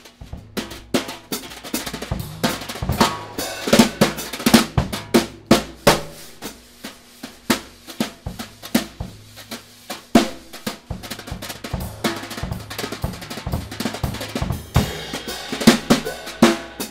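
Drum kit played with wire brushes: a busy stream of snare strokes, accents and cymbal hits over the bass drum, played the way one would play with sticks.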